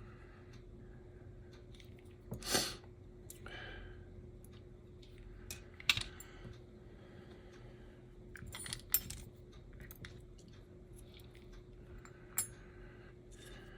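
Light clicks and taps of tiny metal parts and hand tools on a workbench as springs are fitted into an HO scale slot car chassis: scattered small clicks with a few sharper ones, over a faint steady hum.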